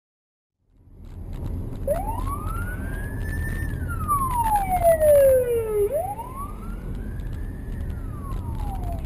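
Emergency-vehicle siren wailing, its pitch sliding slowly up and down twice, about four seconds to each rise and fall, over the steady rumble of a car driving along the road.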